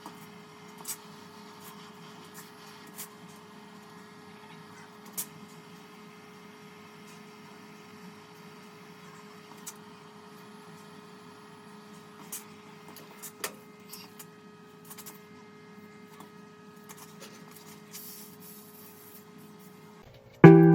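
A steady low hum with scattered faint clicks and taps a few seconds apart. Guitar music comes in right at the end.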